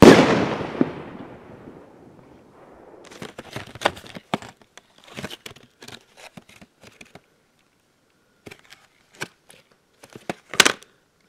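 An aerial firework bursting with a loud bang that echoes away over about two seconds. Then a cardboard firework box is handled and turned over, giving scattered rustles and clicks and a sharp knock near the end.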